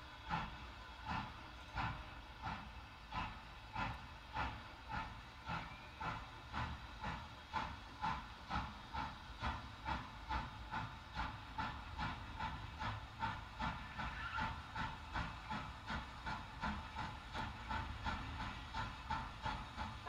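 Recording of a steam locomotive chuffing, played through a Toyota Prius's stock speakers from an entry-level Kenwood car navigation head unit and heard inside the cabin with the engine off. The exhaust beats come steadily and quicken from about one and a half a second to over two a second.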